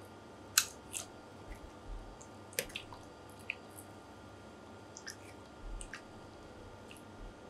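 Wet squelching and sticky clicks of a golden cuttlefish's soft body being pulled apart by hand, its mantle and legs separating. The sounds come as scattered short smacks, the sharpest about half a second in.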